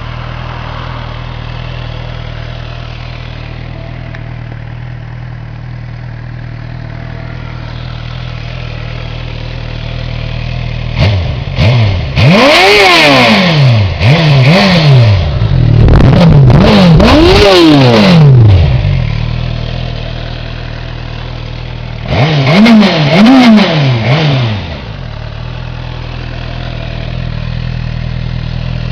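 Suzuki GSX-R 750's inline-four engine on its stock exhaust idling, then blipped through a quick series of free revs that rise and fall in pitch, settling back to idle, followed by two more short blips and a return to a steady idle.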